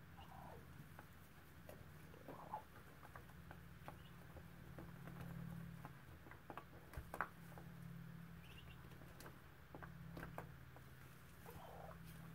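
Faint nest sounds from a Muscovy duck hen on hatching eggs: straw rustling and small clicks as she shifts and pokes beneath her, with a few brief soft calls that slide down in pitch.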